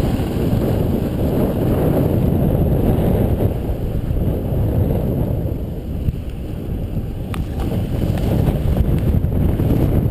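Wind rumbling on an action camera's microphone as the snowboard it rides with runs downhill over groomed snow, a steady low rush. A single sharp click about seven seconds in.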